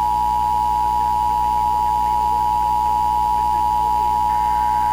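Emergency Alert System attention signal: a loud, steady electronic tone held at one pitch, the alert that comes before an emergency or test broadcast message.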